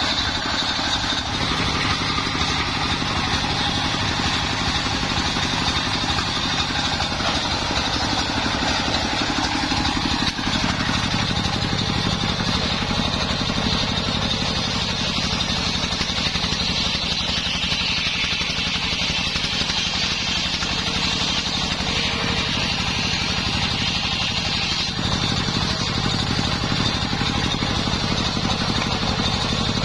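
Homemade table circular saw, belt-driven by a stationary engine, ripping a mahogany log lengthwise. The engine's steady throb runs under a high saw whine that drops in pitch for several seconds past the middle while the blade is loaded in the cut.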